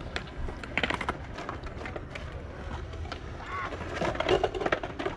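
Skate park din: scattered sharp clacks and rolling of skate and scooter wheels on concrete over a steady low rumble, with a distant child's voice calling out about three and a half seconds in.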